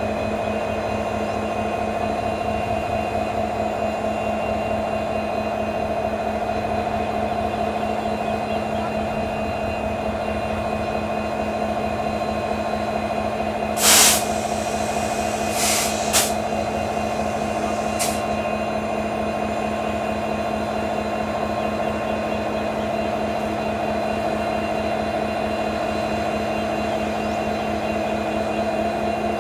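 CC 205 diesel-electric locomotives idling at a standstill: a steady engine drone with a fast low pulsing beat. About halfway through comes a loud, short hiss of compressed air being let off, followed by two brief hisses and a fainter one over the next few seconds.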